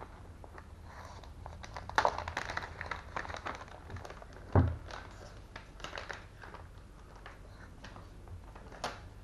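Clear plastic bag crinkling and rustling as a cardboard phone box is slid out of it and handled, with scattered light taps of the box and one louder thump about halfway through.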